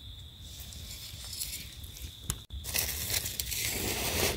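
Dry leaf litter rustling and crackling from about halfway through, as a hand works through it around a termite mushroom. Before that it is quiet apart from a faint steady high tone.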